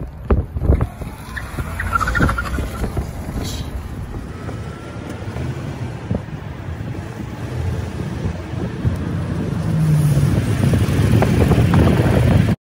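Cars driving at speed: steady tyre, road and wind noise that grows louder as they speed up. There are a few sharp knocks in the first second, and the sound cuts off abruptly near the end.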